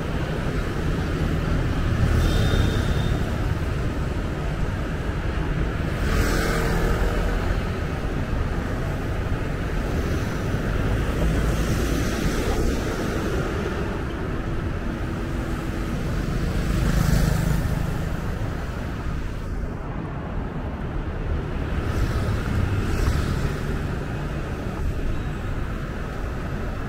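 Traffic noise heard from a moving vehicle: a steady rumble of engine and tyres on the road, with passing cars and motorbikes swelling up and fading every few seconds.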